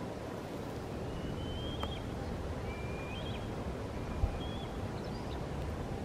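Shallow river water murmuring over stones, with wind rumbling on the microphone and one sharp wind thump about four seconds in. Over it come three thin, high whistled calls of a black kite, starting about a second in, each a held note ending in a short rise.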